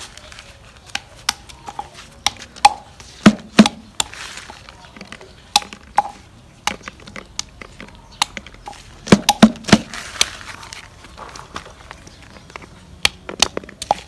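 Irregular sharp clicks and knocks of kitchen utensils against dishes and pans, roughly one every half second to second, loudest in short clusters about three and nine seconds in.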